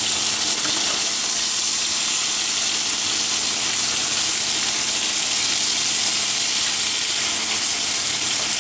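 Thin flour-dredged veal cutlets sizzling steadily in hot vegetable oil and butter in a frying pan.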